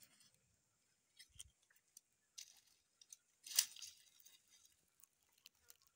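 Faint crackling and rustling of dry grass and leaves, scattered short clicks, with one louder rustle about halfway through.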